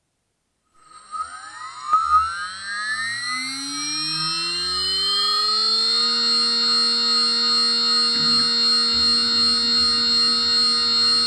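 6040 CNC router's spindle spinning up: a whine that rises in pitch for about five seconds, then holds steady at speed (set to about 10,000 RPM). A faint low rough noise joins about eight seconds in.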